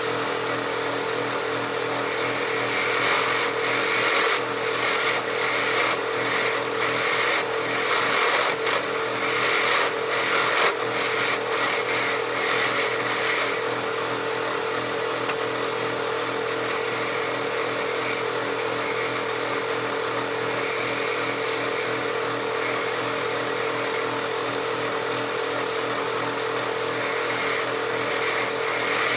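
Wood lathe running steadily with a motor hum, spinning a wooden blank; an uneven, rougher noise comes and goes over the first half.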